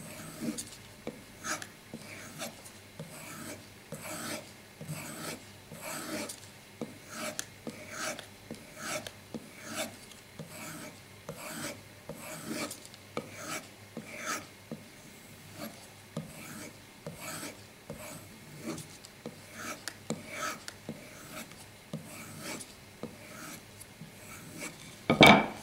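Buck Vantage knife blade drawn back and forth on a leather strop loaded with Bark River white compound: a steady run of short rasping strokes, about one and a half a second, polishing the edge. A louder knock near the end.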